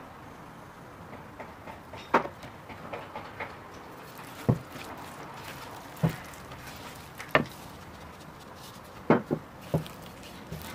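A silicone spatula knocking and scraping in a wooden bowl while flour is stirred into a sticky dough: a handful of scattered dull knocks, three of them close together near the end.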